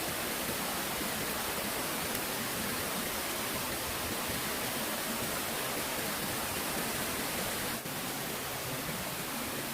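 Steady rush of flowing water, an even noise without change, briefly dipping about eight seconds in.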